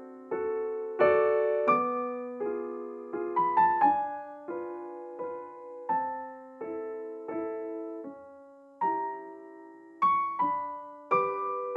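Background piano music: a slow, gentle melody of single notes, each ringing out and fading.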